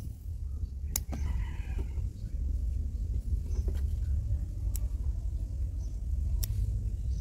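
Small steel bonsai scissors snipping twigs: three short sharp clicks, over a steady low rumble.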